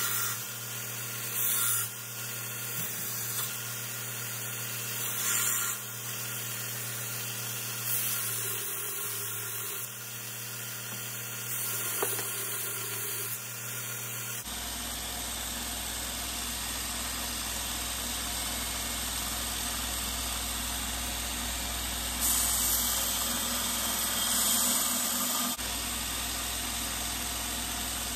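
Electric belt grinder running steadily, with short swells of louder sanding noise as a wooden piece is pressed to the belt. Partway through, the sound switches to a deeper steady machine noise as the steel axe head is ground on the belt.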